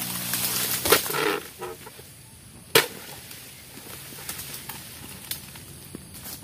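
A long-pole harvesting sickle cutting into an oil palm crown: frond rustling and tearing for the first second and a half, with a sharp knock just before one second and a single louder knock a little under three seconds in, then faint crackles.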